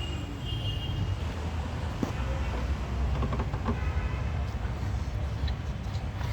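Steady low mechanical rumble, like a vehicle engine running, with a few light metallic clicks of hand tools at work on the engine.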